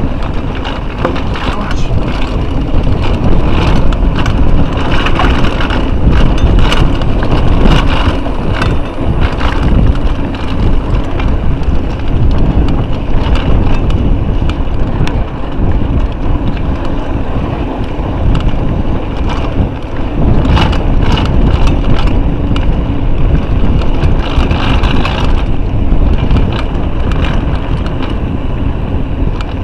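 Wind buffeting an action camera's microphone as a mountain bike rides down a rocky trail, with frequent rattles and knocks from the bike over the rough ground.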